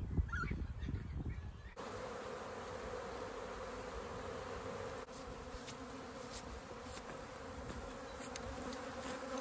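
Steady buzzing drone of a disturbed honeybee swarm flying close about, starting abruptly about two seconds in after a low rumble.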